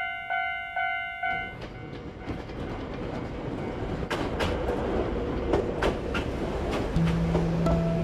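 A level-crossing warning bell clanging about twice a second stops about a second and a half in. A Nagano Electric Railway electric train then rolls in, its rumble growing, with wheels clicking over the rail joints. Music comes in near the end.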